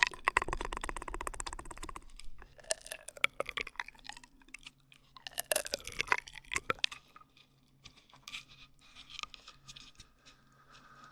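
Close-miked ASMR straw sounds: quick wet clicks and crackles with short gliding squeaks as a drinking straw is worked at the microphone. The sounds come in dense runs early on and thin out, growing quieter, toward the end.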